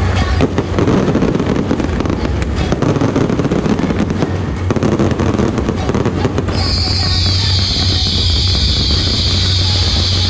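Daytime fireworks barrage: a rapid run of launches and bangs as coloured-smoke shells go up. About six and a half seconds in, this gives way to a dense, high crackling from crackling stars bursting overhead, slowly dropping in pitch.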